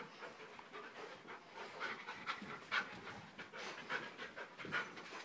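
A dog panting faintly in short, quick breaths.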